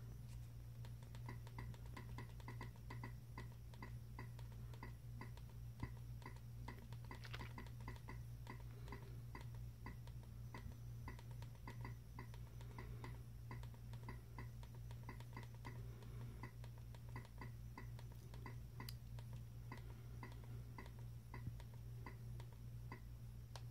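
Faint, regular ticks, about three a second, as a remote's arrow button steps over and over through a long on-screen menu list, over a low steady hum.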